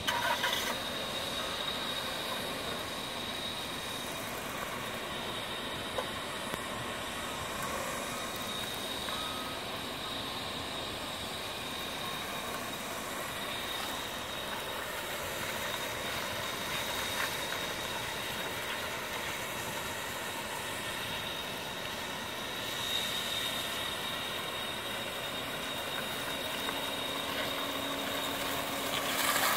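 A 2002 Dodge Stratus sedan driving slowly on concrete: engine running at low speed with tyre noise, and a steady high-pitched tone in the background. It grows louder near the end as the car comes close.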